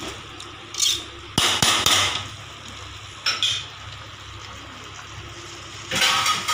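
A metal spatula scraping and knocking against an aluminium pressure cooker pot while mutton pieces are stirred in it. There are a few short scrapes and sharp knocks spread through, the busiest about one and a half to two seconds in, over a low steady hiss.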